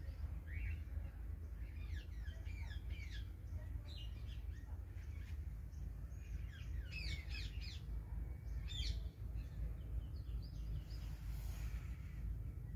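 Birds chirping in quick clusters of short, falling notes, thinning out near the end, over a steady low rumble.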